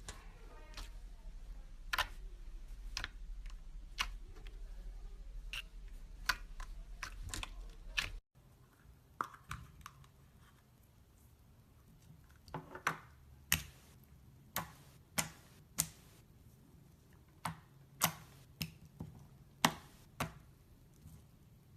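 Slime being squeezed and worked by hand, making irregular sharp sticky clicks and pops. A low hum runs under the first part and stops abruptly about eight seconds in; the clicks then come in clusters.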